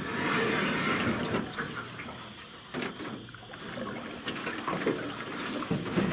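Water splashing and trickling from a fountain, loudest in the first second, with a few sharp knocks in the middle.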